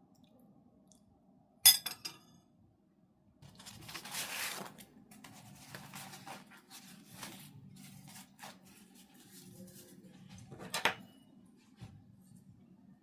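China or glass tableware clinking: one sharp ringing clink, a stretch of softer uneven handling noise, then a second clink near the end.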